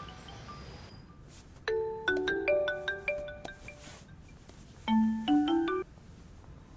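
Mobile phone ringing with a marimba-style ringtone: a short rising run of mallet notes played twice, about three seconds apart.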